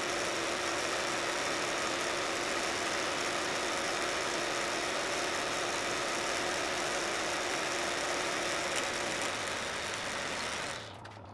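Vertical milling machine running steadily as a milling cutter cuts along a steel bar, a constant machining hum and hiss. The sound drops off just before the end.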